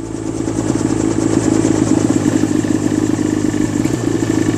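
Mosquito ultralight helicopter's engine and rotor running steadily, heard close up from the cockpit. It grows louder over the first second or so.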